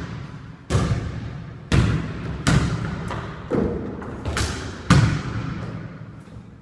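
A basketball bouncing on a hard floor in an echoing room, about six irregularly spaced bounces, each ringing out for most of a second.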